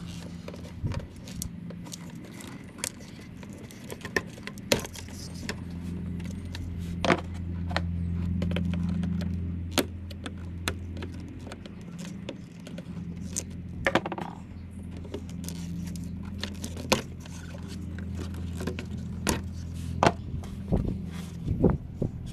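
Scattered clicks and light metallic clinks of hands and a hand tool working plastic clips and connectors on a car's wiring harness beside the radiator fan shroud, over a steady low hum.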